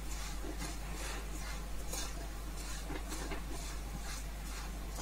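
Metal spatula stirring puffed rice as it dry-roasts in a kadhai: soft scraping and rustling strokes, about three a second.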